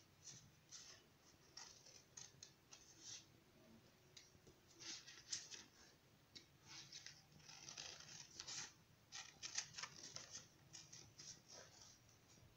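Scissors cutting paper: a faint, irregular run of short snips.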